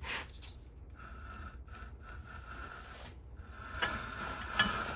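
Landis leather splitter splitting a strip of leather, the leather drawn across the blade with a steady rubbing scrape that breaks off briefly twice and grows louder near the end.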